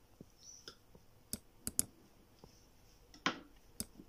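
Knife cutting through an almond-topped cake and clicking against the ceramic serving plate: a series of sharp clicks, the loudest about three seconds in.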